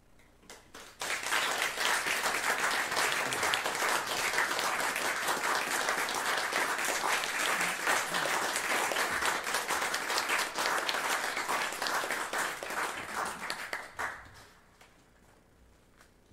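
Audience applauding after a choral piece: a few scattered claps, then from about a second in steady applause that fades out about fourteen seconds in.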